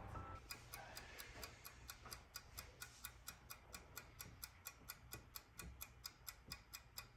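Cat-shaped wind-up mechanical kitchen timer ticking faintly and evenly, about five ticks a second, as it runs down while the cookies bake.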